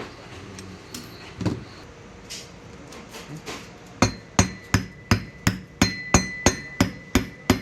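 Light handling clicks, then from about four seconds in a hammer tapping a metal part in steady strikes about three a second, each strike ringing briefly.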